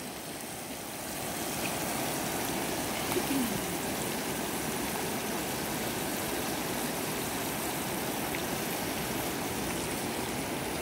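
Steady rushing of a shallow river flowing, growing a little louder about a second in and then holding even.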